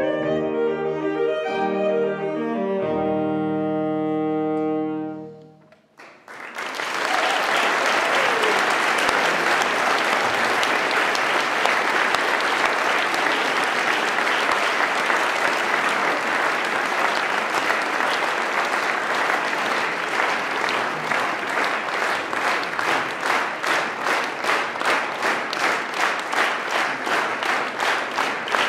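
A saxophone and a digital piano end on a held final chord that dies away about six seconds in. The audience then applauds, and the applause settles into rhythmic clapping in unison, about two claps a second.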